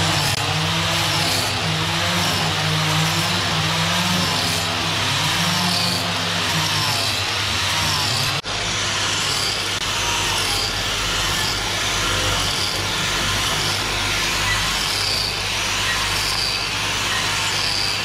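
Handheld electric angle grinder running against the edge of a large wooden slab, grinding the wood with a steady whine, broken briefly about eight seconds in.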